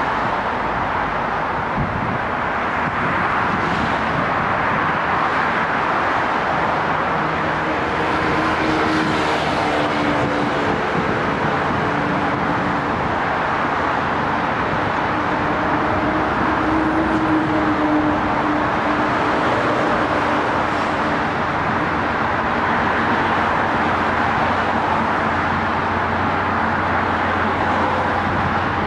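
Steady road traffic noise, with faint humming tones in the middle stretch.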